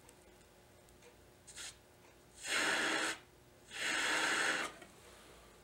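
Two hard breaths blown through a jeweller's mouth blowpipe into an alcohol lamp flame, each a rush of air of about a second, the second a little longer. The flame is heating a jump ring on a charcoal block to flow the solder.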